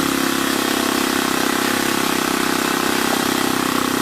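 Small RC model airplane engine running steadily at one speed, a loud, even buzzing drone that holds its pitch throughout.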